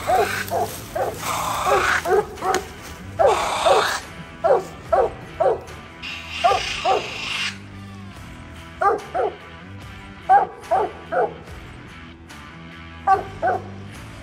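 Coonhound barking treed: a run of short barks, often in quick twos and threes. Rustling brush sounds near the start and again about halfway through, with faint background music underneath.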